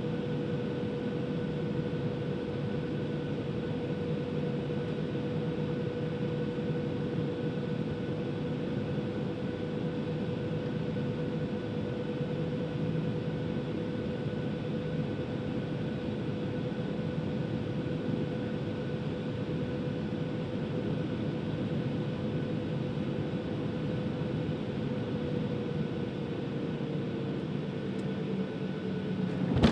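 Cabin noise of a Boeing 737-700's CFM56 turbofan engines on final approach, heard from a seat beside the engine: a steady rush with a steady whine. Near the end the whine drops slightly in pitch as the thrust comes back over the runway.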